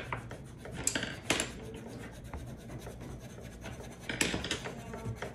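Colored pencil scratching on paper in irregular drawing strokes, with louder strokes about a second in and again about four seconds in.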